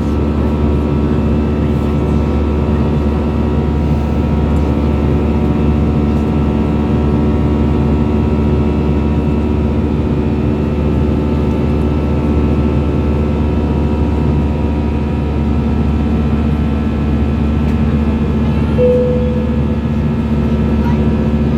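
Steady drone of an Airbus A320's engines and airflow, heard from inside the cabin: several steady engine tones over a low rumble. A short tone sounds near the end.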